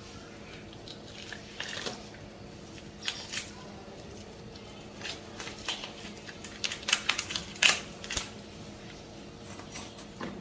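Raw chicken being skinned and pulled apart by hand: irregular wet tearing and crackling in short clusters, busiest and loudest a little past the middle.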